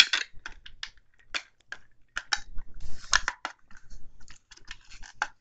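Plastic housing parts of a Shark V15Z handheld vacuum being handled and fitted back together: irregular clicks, taps and short scrapes.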